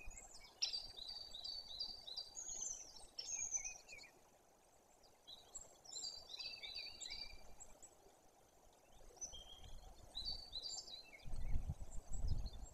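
Small songbirds singing in the forest: several short runs of quick, high chirping notes, with pauses between. Near the end a low, gusty rumble comes in.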